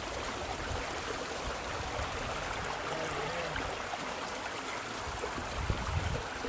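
River water flowing steadily over rocks, a constant even rush.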